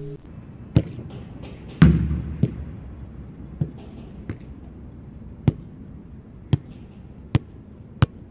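Acoustic guitar music cuts off, then a series of sharp knocks or taps follows at uneven spacing, about one a second, the loudest just under two seconds in, over faint room noise.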